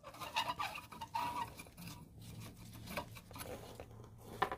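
Hand tools working a screw loose on a Honda Spree scooter: a string of irregular small clicks and scrapes of metal on metal.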